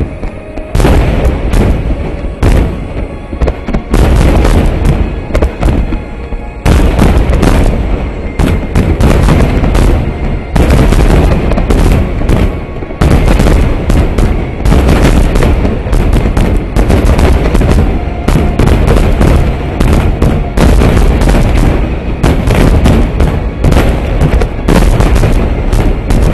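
A dense barrage of large aerial firework shells bursting almost without pause, a continuous run of booms and crackles with a few brief lulls.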